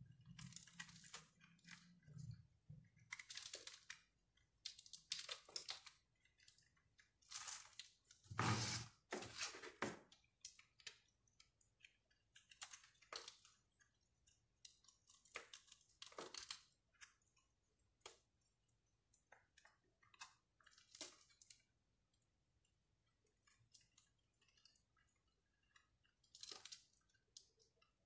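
A knife blade shaving and cutting into a bar of soap: a run of irregular crisp scrapes and crunches, busiest and loudest about eight to ten seconds in, sparser toward the end.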